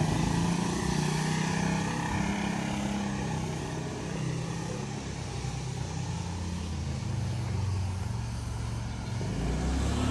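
A motor engine running, its low pitch shifting up and down, over steady outdoor background noise.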